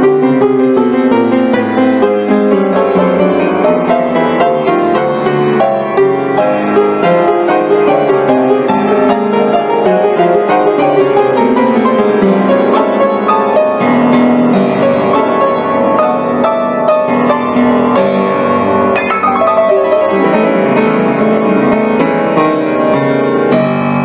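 Background piano music, a steady run of notes at an even level.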